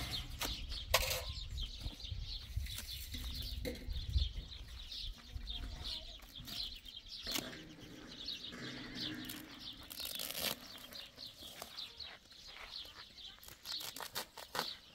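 Stones knocking and scraping together and woven plastic sacks rustling as stones are packed into sacks by hand, with a few sharper knocks. Birds chirping over it.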